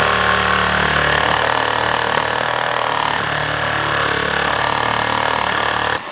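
Reciprocating saw (Sawzall) running steadily as it cuts through an old log-splitter tire to get it off the rim, stopping suddenly near the end.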